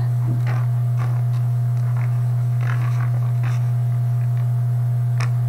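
Steady low electrical hum on the recording, with a few faint, soft ticks scattered through it.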